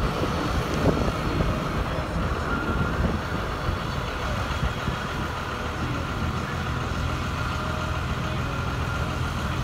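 Steady engine and road rumble of a vehicle driving slowly in town traffic, heard from inside the cabin, close behind a heating oil delivery truck.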